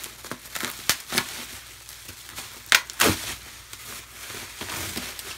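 Plastic bubble wrap crinkling and crackling as it is cut and pulled open by hand, with irregular sharp snaps, the loudest about three seconds in.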